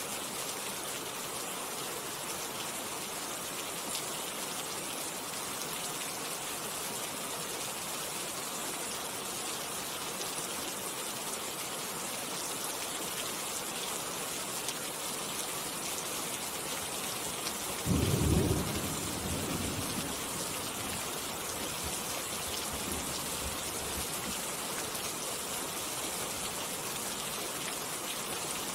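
Steady rain falling, with a sudden low rumble of thunder about two-thirds of the way through that dies away over a few seconds.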